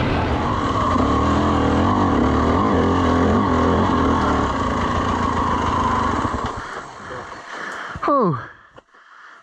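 Dirt bike engine running, pitch wavering with the throttle, that fades out about six and a half seconds in. Near the end comes a brief loud tone sliding quickly down in pitch.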